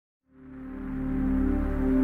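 Ambient new-age music fading in from silence: a held chord of steady, sustained tones that swells up over the first two seconds.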